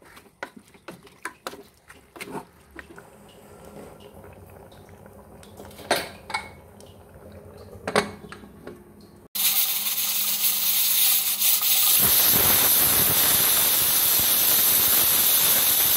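Pressure cooker letting off steam through its weighted whistle valve: a loud steady hiss that starts suddenly about nine seconds in and grows stronger a few seconds later. Before it, light clinks and scrapes of a spatula in the pot.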